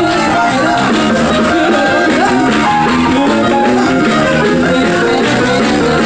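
Loud live band music: a woman singing into a microphone over keyboard, electric guitar and drums.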